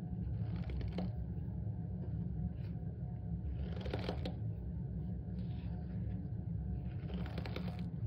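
Dry cornstarch in a plastic tub squeaking and crunching as a hand squeezes it and a metal spoon presses into it. It comes in three short bursts: just under a second in, about four seconds in, and near the end. A steady low hum runs underneath.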